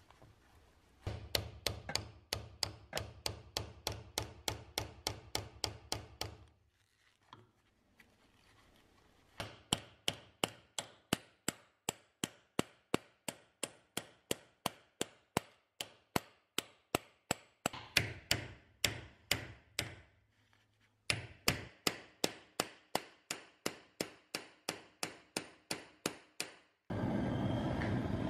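Hand hacksaw cutting metal held in a bench vise: three runs of steady rasping strokes, about two and a half a second, with short pauses between. Near the end a gas torch starts burning with a steady rushing hiss.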